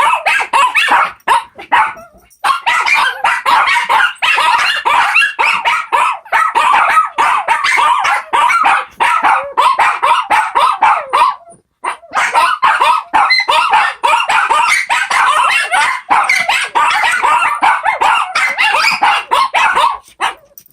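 Four Shih Tzus "singing" together: a chorus of overlapping high, wavering yips and howls. It breaks off briefly about two seconds in and again about halfway through, then stops near the end.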